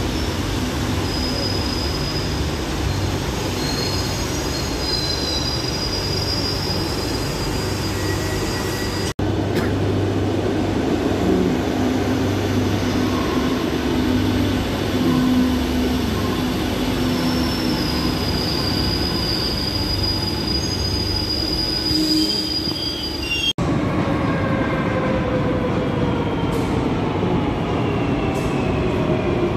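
Madrid Metro trains running along a station platform: steady rumble of wheels on rails with high wheel squeal, in three stretches joined by sudden cuts about nine and twenty-three seconds in. In the last stretch a whine falls in pitch as a train slows into the platform.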